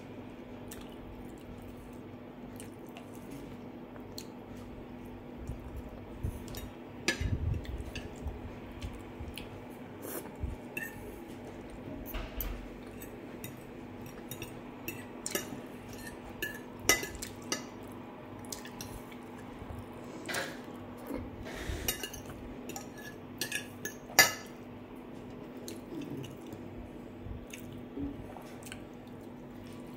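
Metal knife and fork clinking and scraping against a glass plate, in scattered sharp clicks that start a few seconds in, with one louder clink late on. A steady low hum runs underneath.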